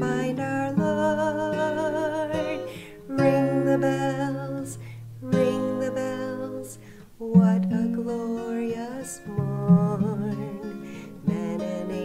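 Music: a woman singing a Christmas song in long, wavering held notes over a strummed acoustic guitar accompaniment.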